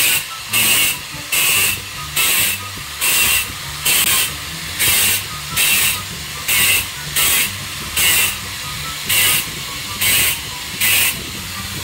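Angle grinder with a thin diamond stone-cutting blade running steadily and biting into a masonry wall in quick repeated strokes, about two a second, each giving a short loud grinding hiss. The strokes stop near the end while the motor keeps running.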